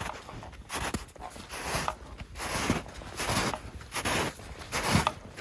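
Footsteps of a person walking on a dirt road, a steady crunch about once a second.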